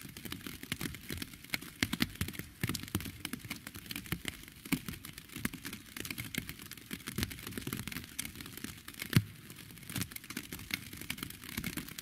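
Rain falling, heard as a dense run of separate drop hits at uneven times, one of them louder about nine seconds in.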